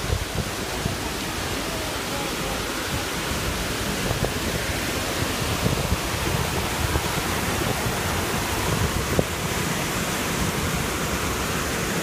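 Mountain waterfall and the white-water stream below it rushing over boulders: a steady, unbroken rush of falling and tumbling water.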